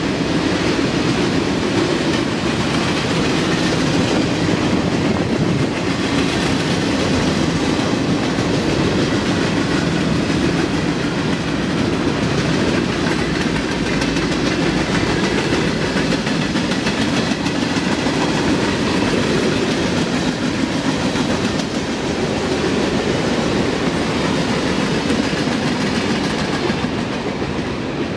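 Freight train of hopper and tank cars rolling past, a loud, steady rumble and clatter of steel wheels on the rails that eases slightly near the end as the last cars move away.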